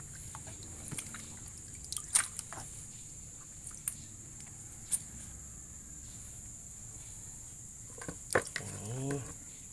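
Leaves being rinsed by hand in a plastic basin of water: faint splashing and dripping, with a few short sharp splashes.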